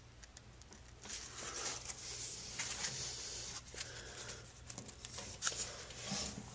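Paper towel rustling and crinkling in the hand in irregular bursts with a few sharp crackles, over a low steady hum.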